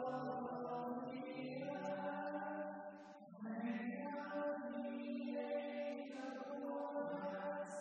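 Hymn singing: voices holding long, slow sung phrases, with a short break about three seconds in.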